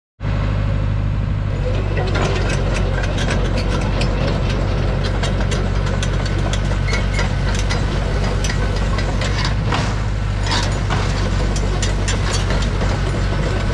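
Boart Longyear DB100 crawler drilling rig's engine running steadily, with irregular sharp clicks and clanks over it.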